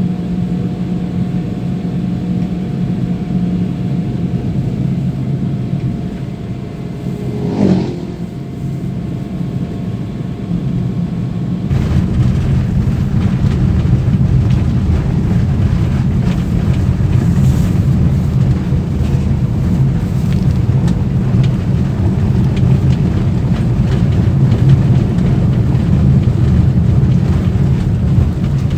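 Car cabin interior noise while driving: a steady low engine and tyre hum, with a short gliding whoosh about eight seconds in. About twelve seconds in it changes suddenly to a louder, rougher rumble of tyre and road noise.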